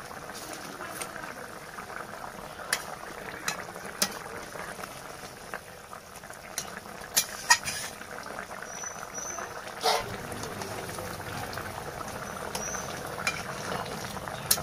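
Fish curry with potatoes bubbling at a steady boil in a metal wok. A metal spatula stirs it, giving scattered sharp clicks against the pan.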